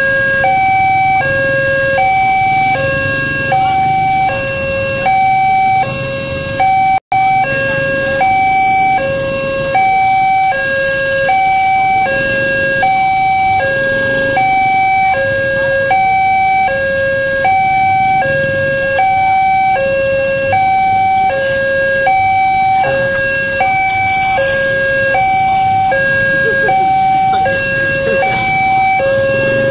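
Railway level-crossing warning alarm sounding continuously, a two-tone signal alternating between a lower and a higher pitch about once a second, warning that a train is approaching. Motorbike engines idle underneath, and the audio drops out for an instant about seven seconds in.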